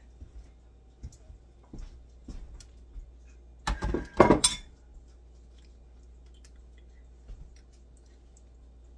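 Clatter of a plate and cutlery being handled: a few light knocks, then a louder clinking clatter with a short ring about four seconds in.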